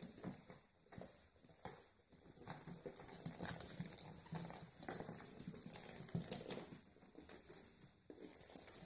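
A Yorkshire terrier puppy's claws and paws tapping on a hardwood floor as it scampers about, in many quick, irregular taps.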